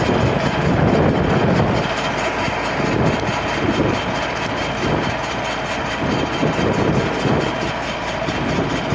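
Tractor engine running steadily as it pulls a PTO-driven bed-forming machine through the soil, with an uneven rumble throughout.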